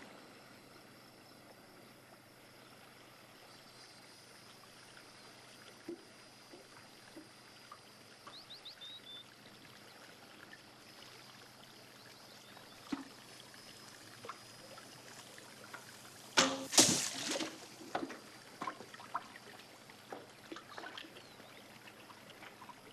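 Faint river ambience with a few small knocks, then, about 16 seconds in, one sudden loud rush lasting under a second: a bow shot and the arrow striking the water, followed by a few small splashes and knocks.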